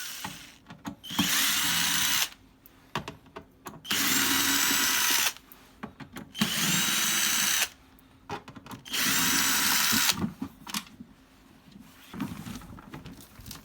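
Electric screwdriver backing screws out of a machine's rear casing: four short runs of the motor, each about a second long, with small clicks between them.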